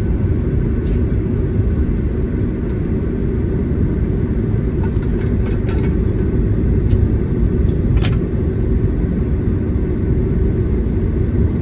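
Steady low road and tyre rumble inside a Tesla electric car's cabin while it drives along at speed, with no engine note, and a light tick about eight seconds in.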